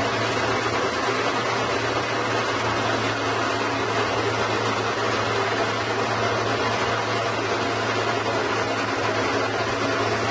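Horizontal band sawmill running steadily, its blade sawing through a large log: an even mechanical noise over a constant low hum.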